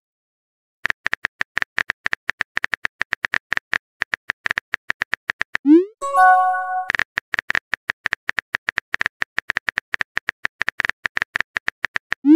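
Keyboard-typing sound effect of a chat app: quick, irregular clicks for a few seconds. A rising blip and a short chime of a few notes mark a message popping up just before the middle, then the clicks resume, and another rising blip comes at the very end.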